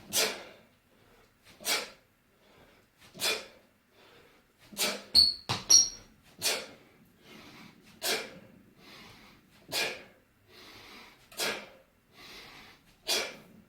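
Sharp, forceful exhalations, one with each kettlebell swing, about every one and a half seconds, with quieter inhales between. A brief high ringing sound about five seconds in.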